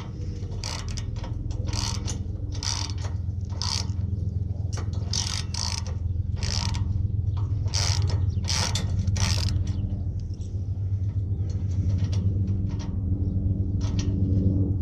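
Hand ratchet wrench working a bumper bracket bolt, clicking in strokes about twice a second; about ten seconds in the clicks thin out to a few faint ones. A steady low hum runs underneath.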